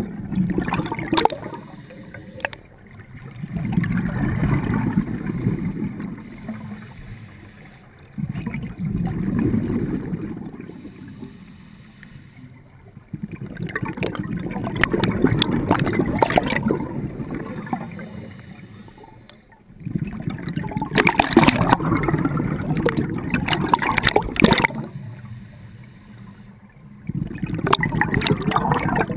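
Scuba diver breathing through a regulator, heard underwater: exhaled bubbles gurgling in slow swells about every five seconds, with quieter gaps between breaths.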